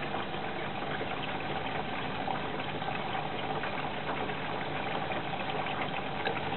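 Hoover Electra 540 Dual Spin front-loading washing machine filling with water for the wash: a steady rush of incoming water with a faint steady hum and a few light ticks.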